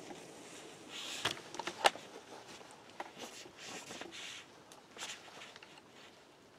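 Scattered faint rustling and crunching in dry leaves with a few sharp clicks, the loudest click about two seconds in, just after a rifle shot.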